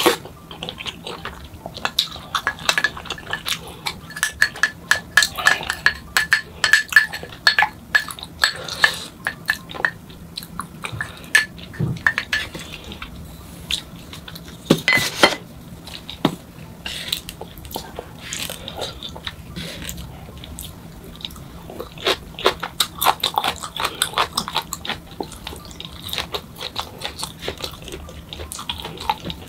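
Close-miked eating sounds: a spoon and chopsticks clicking and clinking against a ceramic bowl, with sipping of broth and chewing. Many short sharp clicks come throughout, and the busiest stretches are about 15 seconds in and again a few seconds later.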